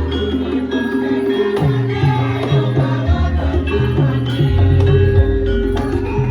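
Javanese gamelan music playing for a lengger dance: sustained tuned metal notes stepping through a melody, driven by hand-drum (kendang) strokes and jingling percussion.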